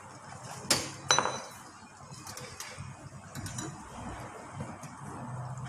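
Kitchenware clinking: two sharp knocks about a second in, the second ringing briefly, then a few lighter clicks.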